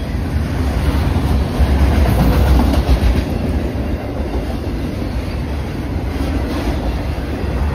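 Freight train of autorack cars rolling past: a steady low rumble of steel wheels on rail, with the clickety-clack of wheels over rail joints, a little louder a couple of seconds in.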